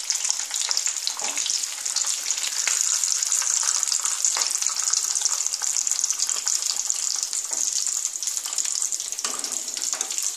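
Breaded egg chops deep-frying in hot oil in a frying pan: a steady, loud sizzling and crackling of the oil.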